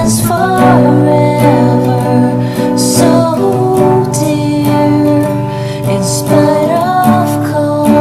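Music: a slow piece with guitar and a singing voice carrying a gliding melody over held notes.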